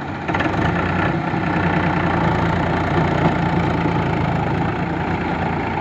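Diesel farm tractor engine running under load as it hauls a loaded trailer through mud, getting louder about a third of a second in and then holding steady.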